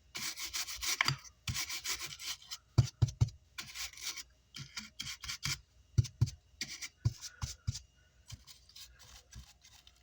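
A pointed tool scraping charred, blackened spots off a burnt amplifier power-supply circuit board in short, irregular strokes, with a few light knocks. The scraping clears away carbon so the copper traces beneath can be seen.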